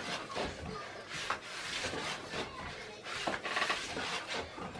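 Wooden rolling pin rubbing and scraping over a wooden board as dough is rolled out, in irregular strokes with a few sharper knocks.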